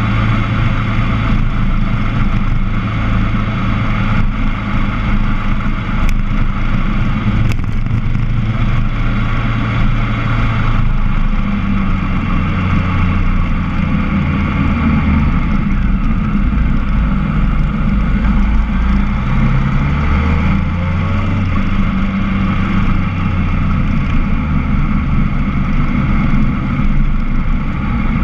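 Motorcycle engine running steadily on the move, its note shifting up and down a few times as the speed changes on a winding downhill road.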